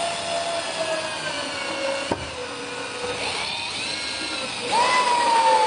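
Power drill driving screws to fix a door closer body to a door: a motor whine that sags slowly in pitch as the screw draws tight, a click about two seconds in, then a second, higher and steadier run near the end.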